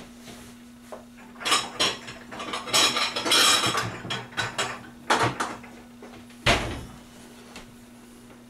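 Kitchen utensil clinking and scraping against a plate in a quick series of clatters, with one heavier knock about six and a half seconds in.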